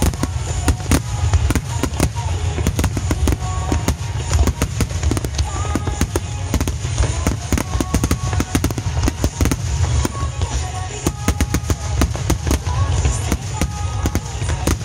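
Starmine barrage of aerial firework shells bursting in rapid succession: a dense run of bangs and crackles over a continuous deep booming, with music playing underneath.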